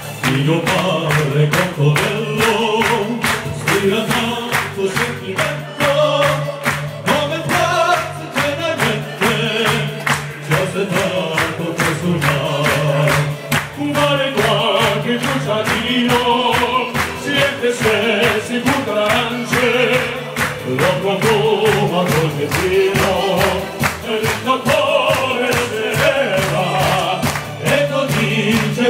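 Four-man male vocal group singing an Italian medley live in harmony through microphones, over amplified backing music with a steady beat.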